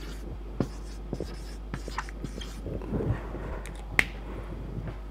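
Marker pen writing on a whiteboard: a series of short taps and strokes of the tip, with a sharper click about four seconds in.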